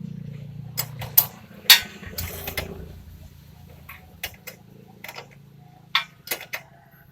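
Metal spanner clinking and knocking on the motorcycle's axle nut and bolts as they are loosened for chain adjustment: a series of sharp, irregular clicks over a steady low hum.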